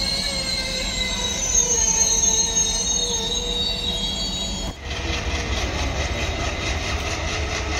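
Indian Railways passenger coaches rolling slowly, their wheels squealing in several high, steady tones. About five seconds in, the sound cuts to a heavier rolling rumble with a fast, even clatter.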